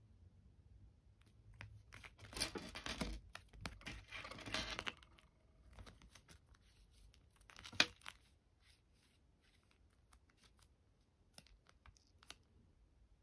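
Parcel packaging being torn open by hand: two longer tearing sounds about two and four seconds in, a sharp short rip near eight seconds, then scattered light clicks and rustles of handling.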